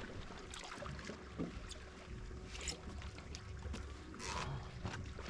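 Water slapping against a small fishing boat's hull over a low rumble, with a few short splashy bursts.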